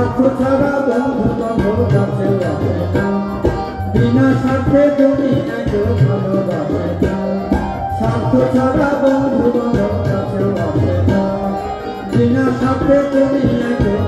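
Instrumental break in a Bengali folk song: hand drums keeping a steady rhythm under a bamboo flute melody, with harmonium.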